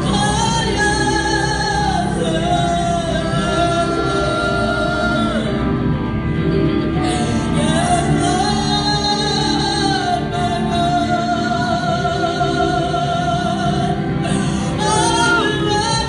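A woman sings a worship song through a microphone, with electric guitar accompaniment. She holds long notes with a wavering vibrato.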